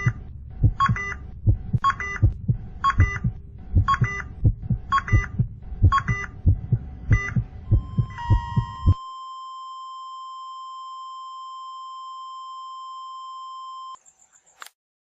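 Heart-stopping sound effect: thudding heartbeats under a heart-monitor beep about twice a second. About eight seconds in, the beeping gives way to one steady flatline tone as the heartbeat stops, which signals cardiac arrest. The tone cuts off suddenly near the end, followed by a few faint clicks.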